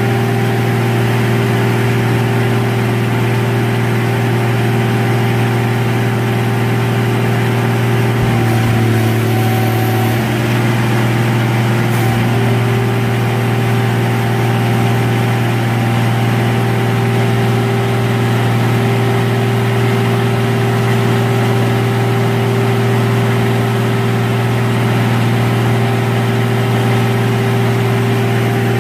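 2005 RM Johnson E-Z A+ car crusher's diesel power unit running steadily. Its tone shifts briefly about eight to ten seconds in, and there is one sharp click about twelve seconds in.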